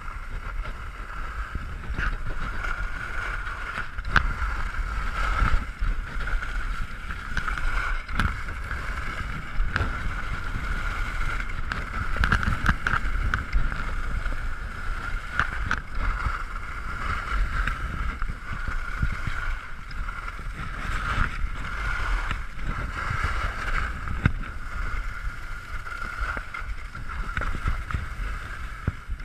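Skis running over groomed, packed snow on a downhill run, a steady scraping hiss, with wind rumbling on the microphone and occasional short clicks.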